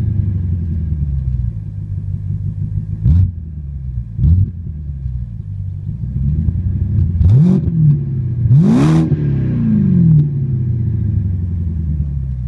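BMW E60 550i's 4.8-litre V8 heard at the exhaust tips, idling with a deep, steady note and revved in several short throttle blips. The longest and loudest blip comes near the end, and each one falls back to idle.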